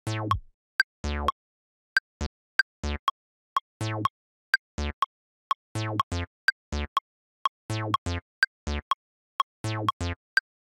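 Short bass-sample notes played by an Ableton Simpler instrument, one or two a second in an uneven pattern, with sharp clicks between them.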